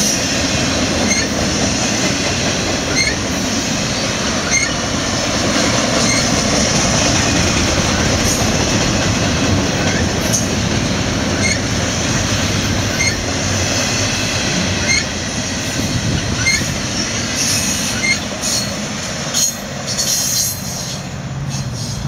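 Double-stack container freight train's well cars rolling past at trackside: steady rumble and wheel-on-rail noise, with short high wheel chirps recurring about every second and a half. The sound eases somewhat near the end as the cars pass by.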